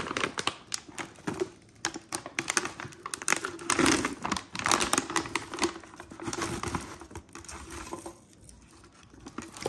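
Dishwasher detergent pods being poured from a crinkling plastic bag into a glass jar: a quick, irregular run of clicks and rustling as they tumble in. It thins out near the end.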